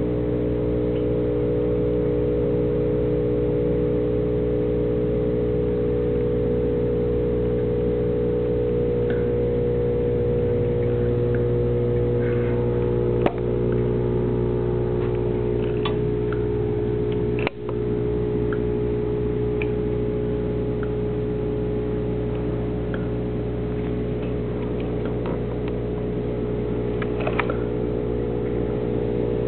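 Steady low mechanical hum made of several steady tones, with two sharp clicks near the middle.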